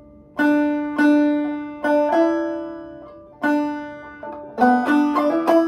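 Five-string banjo played clawhammer style, slowly and note by note: single plucked notes that ring and die away, with hammer-ons stepping the pitch up. A quicker run of notes comes near the end.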